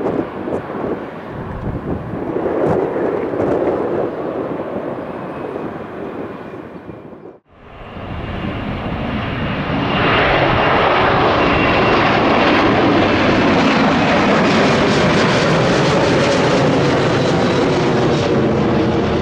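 An Airbus A321-200's jet engines rumbling and slowly fading as it climbs out on departure, then a brief silence. Then a Boeing 757-200 on arrival comes in, its engine noise rising over two or three seconds to a loud, steady roar.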